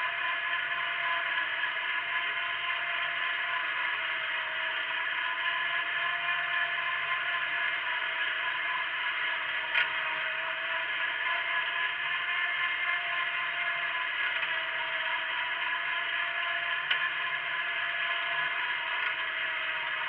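Wheel Horse garden tractor running steadily under load while pulling a single-bottom plough through the soil, a constant mechanical running noise. Two short sharp knocks stand out, one about halfway through and one near the end.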